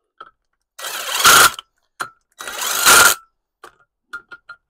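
Cordless impact wrench, set to a low power setting, hammering in the bolts that fasten a new brake disc to an MG Midget hub. It runs in two bursts of about a second each, each growing loudest near its end as the bolt seats, followed by a few light clicks.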